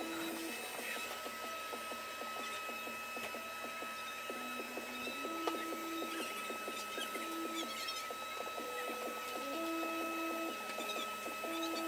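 Wet/dry shop vacuums running steadily on a bare plywood subfloor, with a constant motor whine and the rattle of debris being sucked up.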